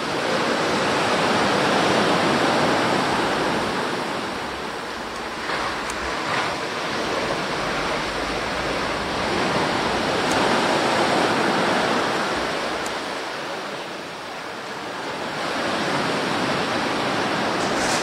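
Sea waves breaking on a beach, the surf rising and falling in three slow surges.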